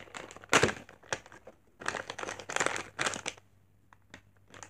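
Hatchimals CollEGGtibles toy packaging being opened by hand, crinkling in irregular bursts, with a short crinkle again near the end.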